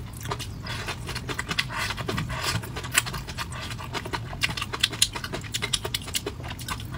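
Close-miked chewing of saucy braised meat: a quick, irregular run of wet smacks and clicks from the mouth.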